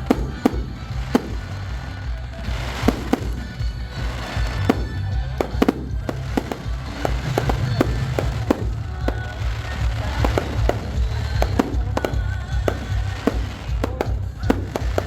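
Aerial fireworks going off: many sharp, irregular bangs and crackles in quick succession over a continuous low rumble.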